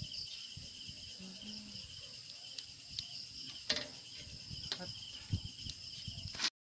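Crickets chirping in a steady, high, pulsing trill, with a few faint clicks over it; the sound cuts off abruptly near the end.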